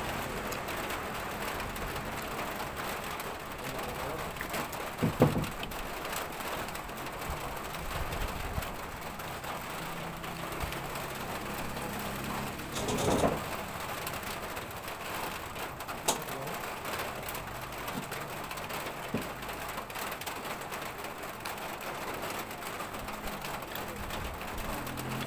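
Steady background hiss with a few brief knocks and a sharp click of tableware, from eating grilled fish by hand off a plate.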